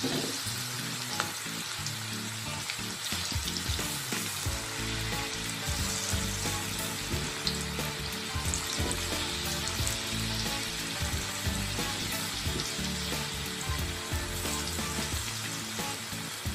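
Potato pakoras, slices of potato in gram-flour batter, deep-frying in hot oil in a wok: a steady sizzle with only faint crackles and no spattering, which the cook credits to a pinch of wheat flour added to the oil.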